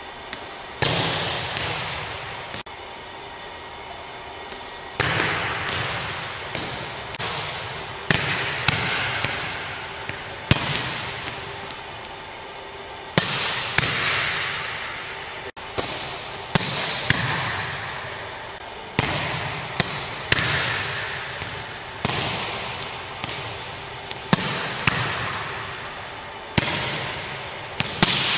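Volleyballs being struck and bouncing on a hardwood gym floor: sharp smacks about every second or two, some in quick pairs, each ringing out in the gym's echo.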